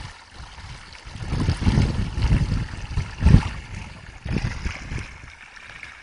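Water sloshing and splashing, with irregular low thumps and surges that are loudest in the middle, the strongest just past three seconds in.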